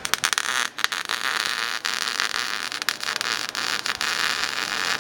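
Welding arc on exhaust pipe, a steady frying crackle with many sharp pops, which strikes up abruptly at the start and runs on.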